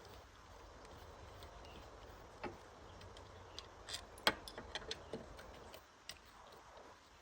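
Scattered light clicks and taps, as of small tools or metal parts being handled, with a quick cluster of them a little past halfway.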